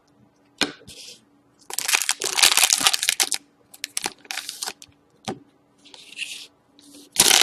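A trading card pack being torn open and its wrapper crinkled, in several separate rustling bursts with a few sharp clicks. The loudest burst comes near the end.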